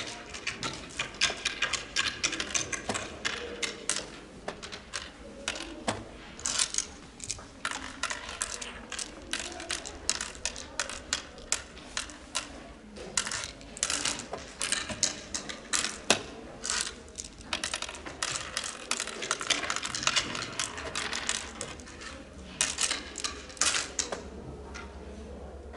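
Oware counters clicking as they are dropped one by one into the pits of a wooden oware board, in quick runs of sowing moves. The clicking stops near the end, leaving a low hum.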